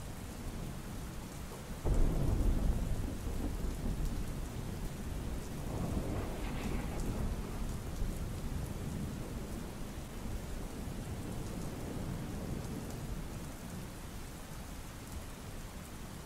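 Steady rain with a sudden deep rumble of thunder about two seconds in, rolling away over several seconds, and a second, softer rumble around six seconds in.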